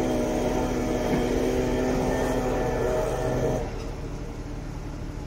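Boom truck's engine running steadily, then dropping to a lower, quieter hum about two-thirds of the way through.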